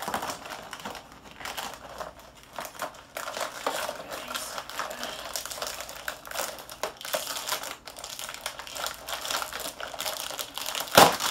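Cardboard box of a Kracie Popin' Cookin' candy kit being pried and torn open by hand, with irregular crinkling and scraping of the cardboard and the plastic bag inside. A sharp, louder rip comes near the end.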